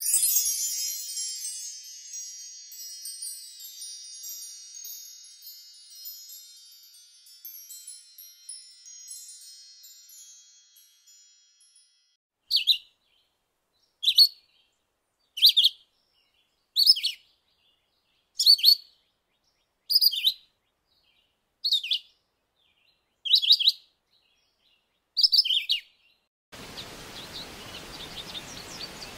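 A cluster of chimes rings out at once and fades away over about twelve seconds. Then a short, high bird call repeats nine times, about a second and a half apart, and near the end a soft steady outdoor ambience comes in.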